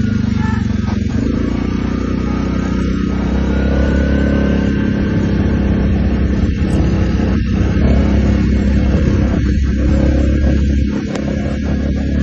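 Quad bike engine running steadily, heard from on board: a low, even drone.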